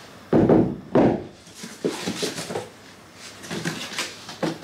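Blue prismatic LiFePO4 cells and their cardboard boxes being handled on a tile floor as the cells are slid out of the boxes and set down: two solid knocks within the first second, then lighter scrapes and knocks.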